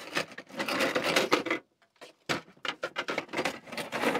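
Circuit boards clattering and rustling as they are rummaged through in a box: two spells of dense handling noise with a short pause about halfway.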